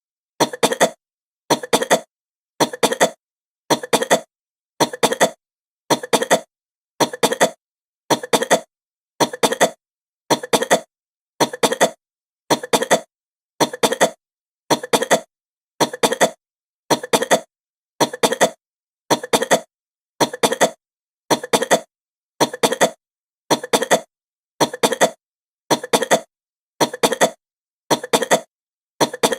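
A woman coughing fast: short bursts of two or three quick coughs, repeating evenly about every two-thirds of a second with dead silence between them.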